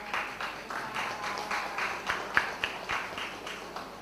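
Scattered audience applause: a modest number of people clapping in loose, uneven claps that thin out and quieten near the end.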